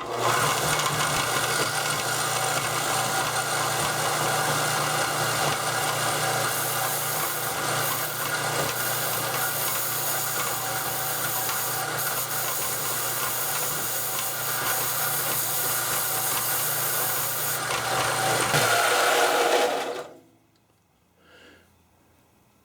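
Belt sander running with a steel breaker bar held against the abrasive belt, sanding down the pitted metal: a steady motor hum under a dense grinding hiss. It starts abruptly and cuts off about twenty seconds in.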